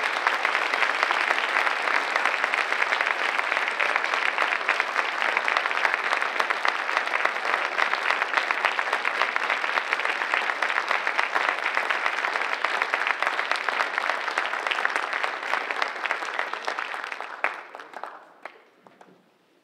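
Audience applauding: dense, steady clapping that dies away over the last couple of seconds.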